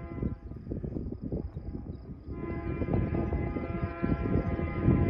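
Diesel locomotive air horn sounding from an approaching train, a chord of several steady tones over a low rumble. The horn is faint at first and grows much louder about two seconds in.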